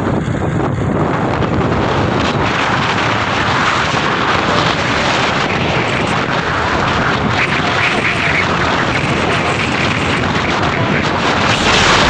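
Wind buffeting the microphone of a moving motorcycle, a steady loud rush with the ride's engine and road noise mixed in underneath.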